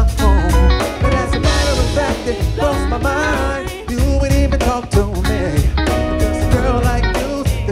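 Live band playing a song: drum kit, bass guitar, electric guitar and keyboard, with a male lead vocalist singing over them.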